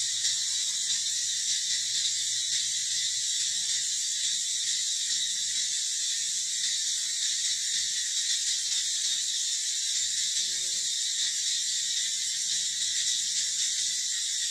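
Steady, high-pitched insect chorus that drones on without a break.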